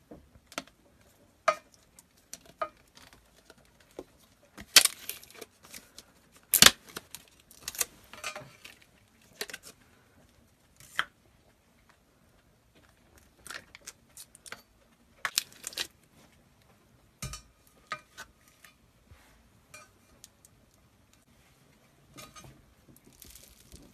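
Plastic packaging and a plastic tub of Bobble Bitz crunchy molding compound being handled and opened: a string of sharp clicks and cracks, the loudest near the start. Near the end comes a faint grainy crackling as fingers squeeze the bead-filled compound.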